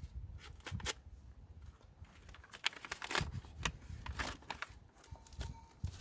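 Packaging being handled and unwrapped by hand: irregular crinkling and rustling with scattered small clicks as the box holding the knife is unpacked.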